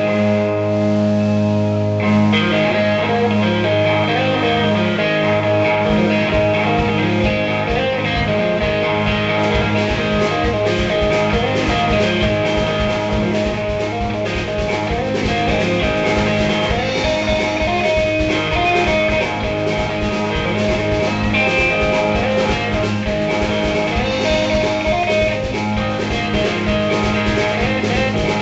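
A live blues band playing: electric guitar, with a drum kit keeping a steady beat under it from about five seconds in.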